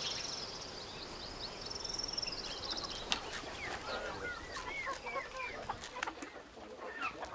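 Hens clucking and calling in short notes as they crowd in to be fed, with scattered light ticks. A high warbling trill runs through the first two and a half seconds before the clucking starts.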